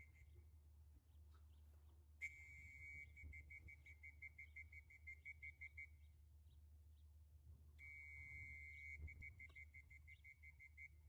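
Electronic beeper, likely the loft's race timing system registering arriving pigeons, sounding in rapid high-pitched beeps of about five a second. It comes in two runs of a few seconds each, about two seconds in and again near eight seconds, over a low steady hum.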